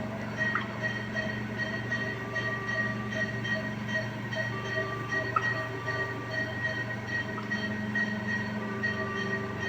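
Infant ventilator running in CPAP mode: a steady low hum with a fast, even pulsing of short tones, about three a second, over a thin steady high tone.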